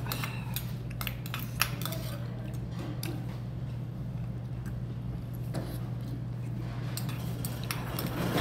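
A metal spoon clinking now and then against a small stainless steel bowl as soup is scooped and eaten, with one sharper clink about a second and a half in. A steady low hum runs underneath.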